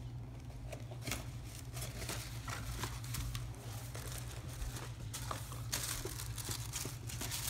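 Doll-outfit packaging being opened by hand: crinkling and tearing, with scattered rustles and taps that turn denser and louder near the end, over a steady low hum.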